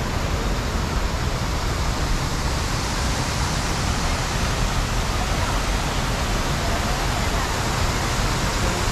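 Steady rushing noise with a low, fluttering rumble underneath.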